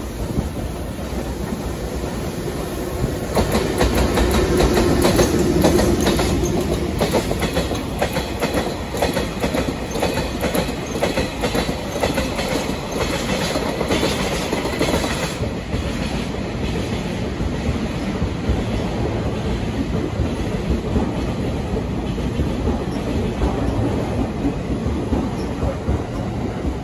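Freight train of tank wagons passing behind a blue electric locomotive, wheels clattering steadily over rail joints. It is loudest a few seconds in.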